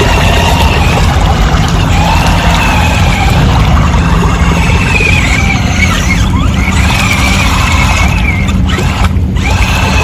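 An amphibious RC car's electric drive motors whine as it paddles through pond water. The whine rises and falls in pitch with the throttle and briefly drops out a few times. A steady low rumble of churning water sits underneath.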